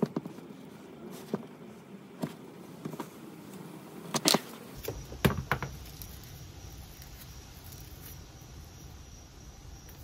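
Razor blade scoring and stripping the red insulation off heavy 1-gauge copper cable, with the cable handled by hand: scattered small clicks and scrapes, the loudest about four and five seconds in, then only a faint steady hiss.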